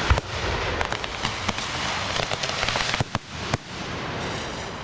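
Aerial fireworks shells bursting: a sharp bang right at the start, then a dense, steady crackle from the bursting stars. A few more sharp reports come about three seconds in, and the crackle thins out after them.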